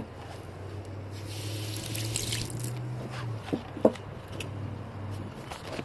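Water running steadily, with a hiss that swells for a second or two, and a couple of light knocks about two-thirds of the way through.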